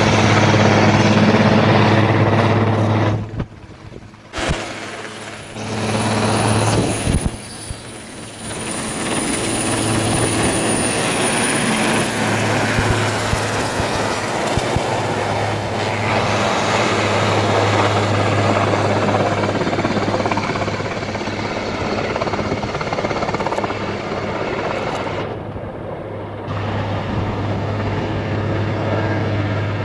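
An Airbus H225 Super Puma helicopter hovering and manoeuvring low: its rotors and turbines give a steady low drone, with a thin high turbine whine from about seven seconds in that lasts about five seconds. The sound dips sharply twice in the first ten seconds.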